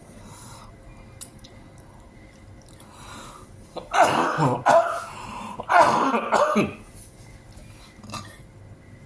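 A man coughing and clearing his throat hard in two harsh bouts, about four and six seconds in: a coughing fit from choking on very spicy food.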